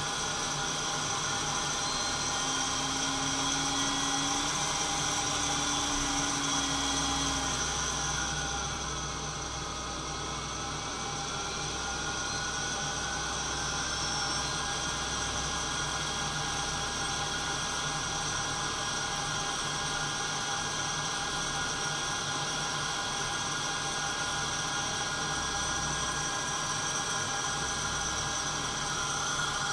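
Santoker Q5 coffee roaster running mid-roast, its fan and drum motor giving a steady whir with several constant whining tones. A faint whistle dips in pitch and climbs back about a third of the way in.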